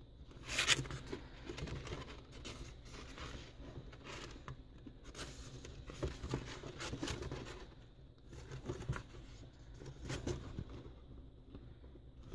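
Hands rummaging inside a cardboard box, packaged items rustling and scraping against the cardboard in irregular short strokes, with a louder rustle under a second in.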